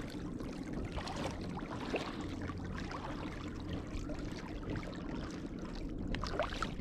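Water lapping and trickling against a kayak hull, a steady wash with small scattered splashes and ticks.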